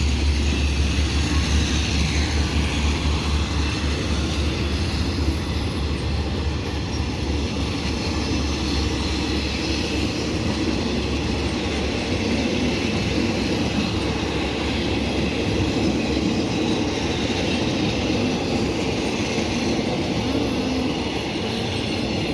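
A train running along the track, a steady rumble of wheels on rails that is slightly louder at the start.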